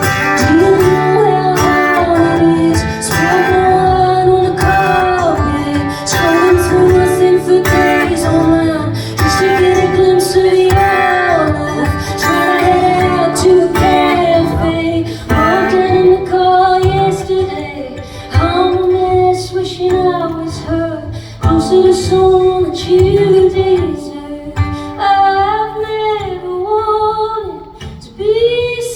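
A woman singing a song live with strummed guitar accompaniment.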